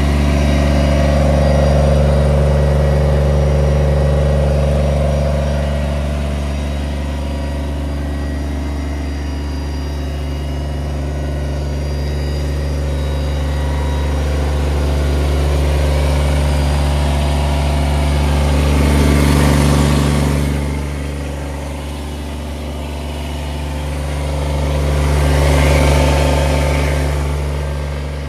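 Kubota sub-compact tractor's small diesel engine running at a steady speed, swelling louder twice in the second half.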